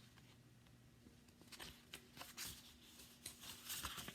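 Faint paper rustles and a few light taps as a picture book is opened and its pages handled, over a low steady hum of room tone.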